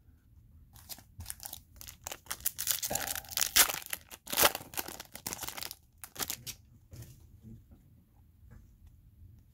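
Dry rustling and scraping of glossy trading cards being handled and set down on a pile: a run of quick strokes that starts about a second in, is busiest in the middle and thins out near the end.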